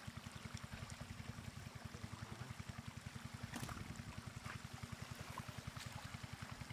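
Shallow floodwater rushing and splashing over flattened grass and around a woven bamboo basket, with a few faint clicks and splashes. Under it runs a steady, evenly pulsing low hum.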